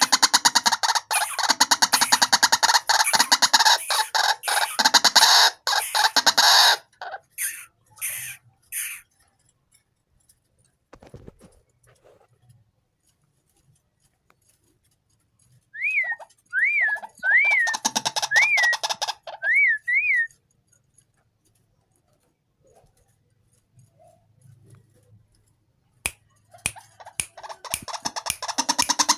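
White-breasted waterhen calling in bursts of rapid, harsh calls. The first burst lasts about seven seconds. A second burst about sixteen seconds in carries six short rising-and-falling whistled notes, and another burst starts near the end, with quiet gaps between.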